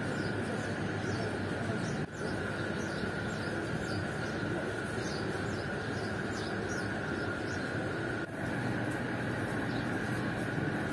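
A steady whooshing noise with a constant hum, with faint bird chirps scattered over it; it drops out briefly twice, about two seconds in and near eight seconds.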